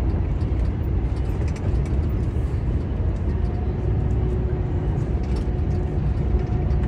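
Heavy truck driving at highway speed, a steady low engine and road rumble heard from inside the cab. A faint steady whine joins about halfway through.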